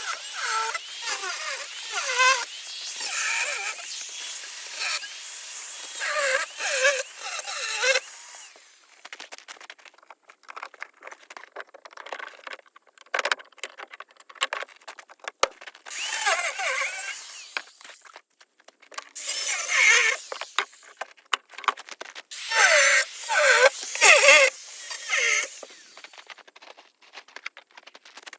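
Tool work on metal in bursts, with high squealing glides in pitch: one long stretch that stops about a third of the way in, then several shorter bursts with pauses between them.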